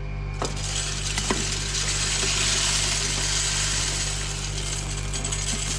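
A sheet-metal cover plate is scraped and prised off a parlour feed dispenser with a screwdriver. It makes a rough scraping and rubbing noise with a couple of sharp clicks near the start, over a steady low machinery hum.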